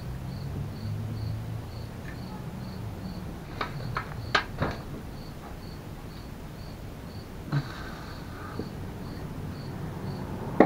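Crickets chirping steadily, about two chirps a second, over a low hum. About four seconds in come a few sharp metallic clinks of hand tools, with single clicks later on.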